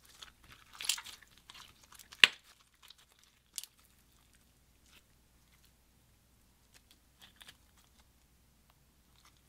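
Clear slime packed with small beads being stretched and squeezed by hand, giving sticky crackles and clicks, with one sharp pop about two seconds in. The crackling then thins out to a few faint clicks.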